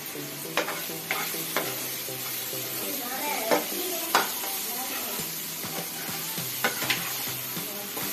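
Onion-tomato masala with freshly added ground spices sizzling as it fries in a non-stick pan. A steel spatula stirs it, knocking and scraping against the pan about seven times.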